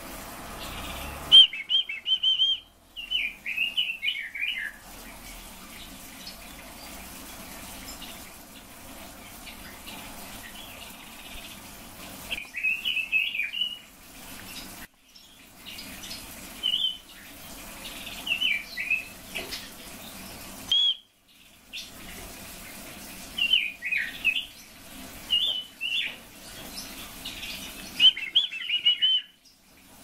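Caged Leiothrix songbirds (red-billed leiothrix and silver-eared mesia) singing: short, high, warbled phrases about every few seconds, with pauses between them.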